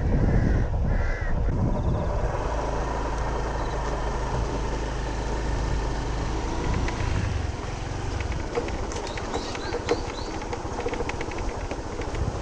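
A crow cawing a few times in quick succession, stopping about a second in, then a steady low rumble, with a few short high chirps near the end.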